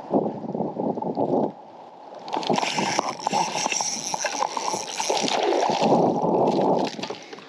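Lake water splashing and sloshing, first a short spell, then a longer, louder one from about two seconds in until near the end.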